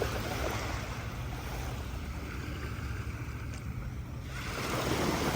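Small sea waves breaking and washing up the beach, with a wash of surf at the start and a louder one building about four seconds in, over a low wind rumble on the microphone.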